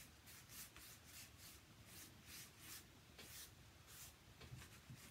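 Faint, repeated rubbing of a paper towel over the ridged surface of painted corrugated cardboard, spreading antique wax, at about two to three strokes a second.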